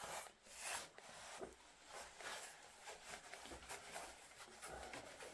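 Faint, irregular rubbing and scraping, as of things being handled, with a couple of soft low knocks.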